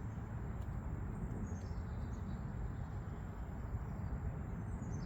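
A bird chirping faintly twice, short calls that fall in pitch, about a second in and again near the end, over a steady low rumble.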